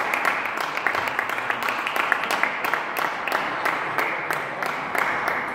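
Applause from a small audience, a dense run of irregular hand claps that starts to fade near the end.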